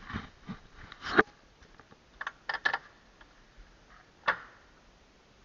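Scattered footsteps and scuffs, a few short irregular crunches and clicks, the loudest about a second in and another sharp one about four seconds in.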